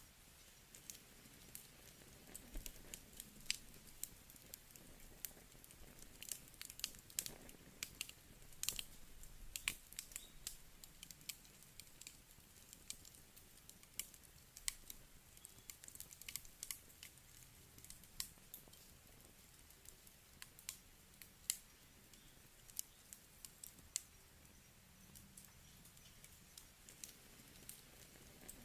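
Quiet wood campfire crackling: irregular sharp pops and snaps from the burning logs over a faint low hiss, densest around six to eleven seconds in.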